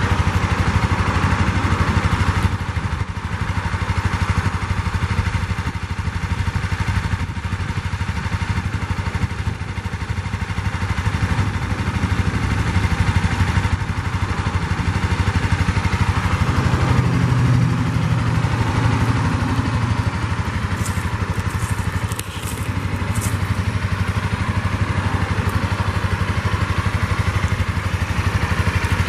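2015 Honda CBR300R's single-cylinder engine idling steadily through its stock exhaust, with a deeper, louder stretch of a few seconds past the middle.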